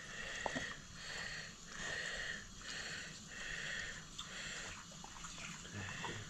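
White Shiba Inu eating from a stainless-steel bowl: rhythmic noisy swells a little more than once a second, with a few light clicks.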